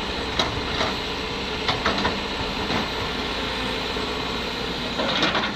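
Kobelco hydraulic crawler excavator's diesel engine running steadily under load as the bucket tips a load of soil into a dump truck and swings back up, with several sharp clanks and knocks scattered through it.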